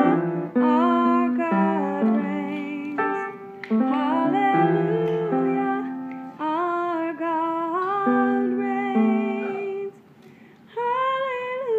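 Slow sung melody with long held notes that bend and waver, over piano notes, with a short break about ten seconds in.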